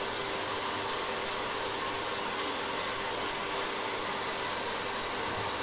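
A steady, even hiss with a faint constant hum under it, like a fan or blower running.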